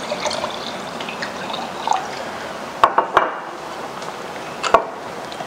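White wine poured from a bottle into a stemmed wine glass, a liquid fill in the first couple of seconds. A few sharp knocks follow about three seconds in and once more near the end, over a steady hiss.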